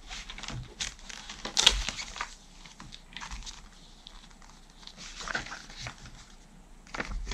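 Paper instruction booklets rustling as they are handled and pulled out from under a foam case insert: irregular crinkles, the sharpest about a second and a half in.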